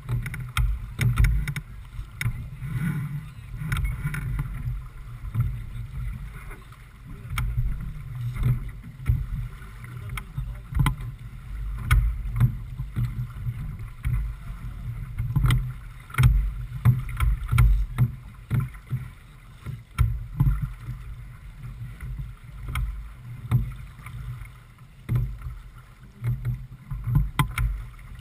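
J/24 keelboat sailing upwind in chop: gusty wind rumble on the microphone and the wash of water along the hull, with scattered sharp knocks and clicks.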